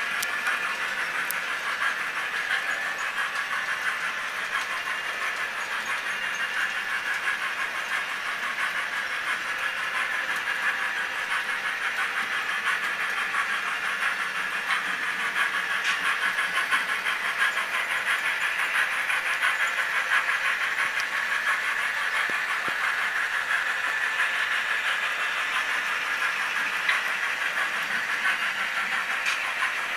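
Model train running on the layout track, pulling boxcars: a steady whirring of the locomotive motors and wheels on the rails, with a fine rapid clicking.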